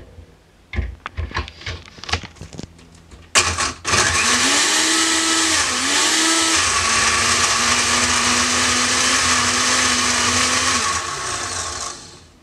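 Countertop blender: a few knocks as the jar is seated on the base, then the motor runs for about seven seconds, blending crushed ice with mango sorbet and rum. Its note dips a couple of seconds in and stays lower as it grinds ice chunks that turned out too big to blend well, then it winds down near the end.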